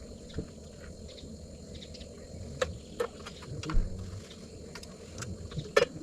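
Scattered light clicks and knocks from cooking gear being handled while coffee and breakfast are made ready, with a few sharper knocks near the middle and near the end.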